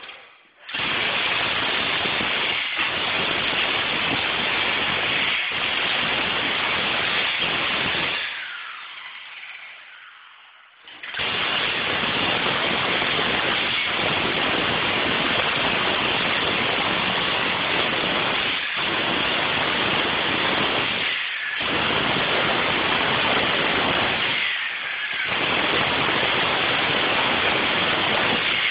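Jackhammer running in long loud stretches, heard as a dense rattling noise. It stops for about three seconds a third of the way in and breaks off briefly twice later.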